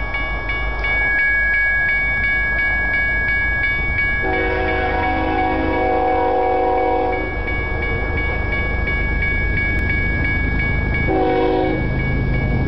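Grade-crossing bell ringing steadily at about two and a half strokes a second while an approaching Union Pacific diesel locomotive sounds its multi-chime air horn: one long blast about four seconds in and a short one near the end, over a low rumble.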